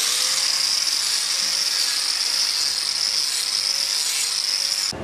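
Angle grinder with a sanding disc running at full speed, a steady high whine, as it grinds down a cow's hoof. It cuts off suddenly near the end.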